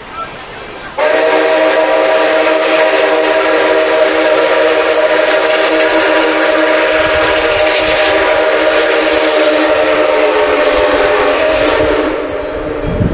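Nickel Plate Road 765's steam whistle blowing one long blast, a steady chord of several tones. It starts sharply about a second in and dies away near the end.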